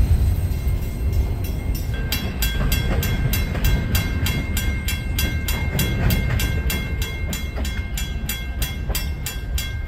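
Railroad grade-crossing bell ringing steadily at about four strokes a second, starting about two seconds in, over the low rumble of a freight train pulling away down the line.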